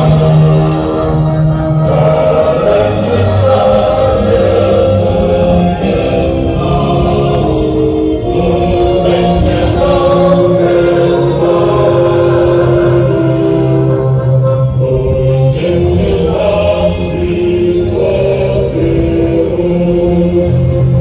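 Choir singing a slow song in long, held notes, several voices together over a steady low part.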